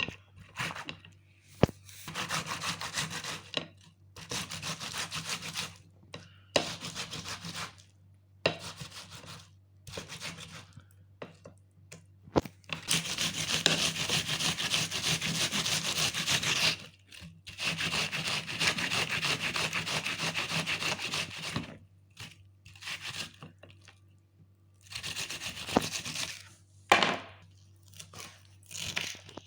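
Food being grated by hand: runs of rapid rasping back-and-forth strokes, each run lasting one to four seconds, with short pauses and a few sharp clicks between them.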